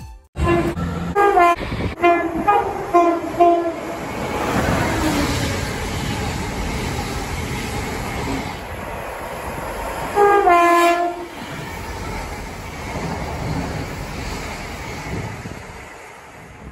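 A passenger train's horn sounding a quick string of short toots, then the rumble of the train running, and one longer horn blast about ten seconds in.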